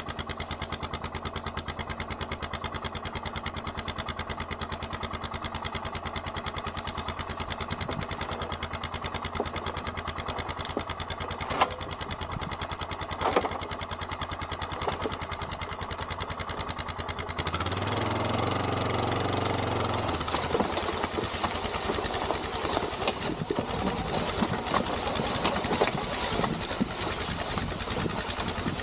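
Quad (ATV) engine idling steadily, just after starting. About two-thirds of the way through it revs and then runs unevenly as the quad pulls away, towing a trailer heavily loaded with soil.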